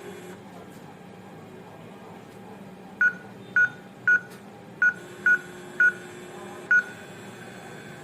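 Smart digital door lock's keypad beeping as a password is entered: seven short beeps of the same pitch, one per key press, starting about three seconds in and spread over about four seconds.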